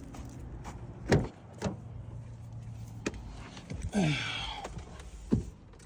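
Sharp clicks and knocks from a car door and cabin, with a steady low hum and a short electric whir about four seconds in. This is a 2019 Infiniti QX80 being readied to crank on a newly fitted starter; the engine has not yet started.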